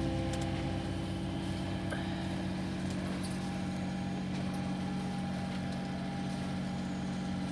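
A sailing yacht's inboard diesel engine running steadily under motor, heard as an even low drone from the cockpit.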